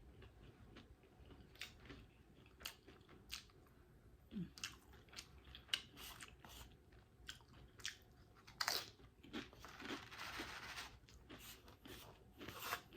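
Close-miked chewing and crunching of food: faint, scattered crunches and mouth clicks, with a louder snap and a short stretch of crisp crunching near the end.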